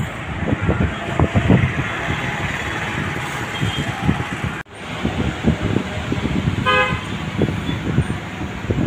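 Street traffic noise, with one short vehicle horn toot about seven seconds in.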